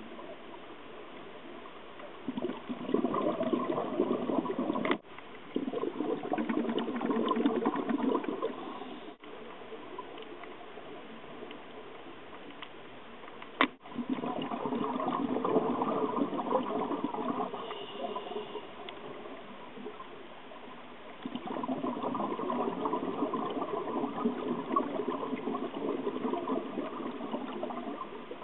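Scuba diver's exhaled bubbles rumbling out of the regulator underwater, in three long bursts of several seconds each with quieter pauses between breaths. A sharp click comes about fourteen seconds in.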